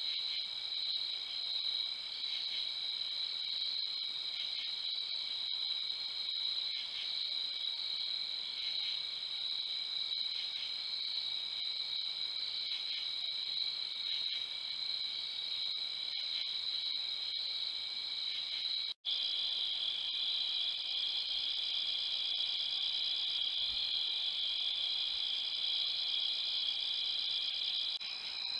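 Chorus of crickets trilling steadily at night, several high-pitched layers of continuous chirping. It breaks off for an instant about two-thirds through and resumes at a slightly different pitch.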